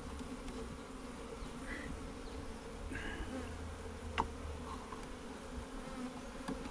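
A swarm of honeybees buzzing steadily, with a single sharp click about four seconds in.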